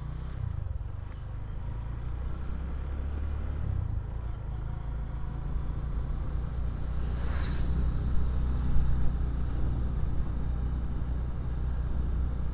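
Motorcycle engine running steadily under way, heard from the rider's seat as a low rumble. About seven seconds in, an oncoming vehicle passes with a brief rush.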